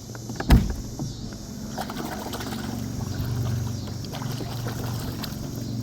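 A single hard thump about half a second in, then the steady low drone of a motorboat engine running on the river, swelling slightly midway.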